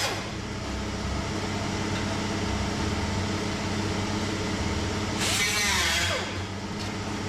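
A power tool running steadily, with a louder, higher burst about five seconds in, typical of metal being cut or ground.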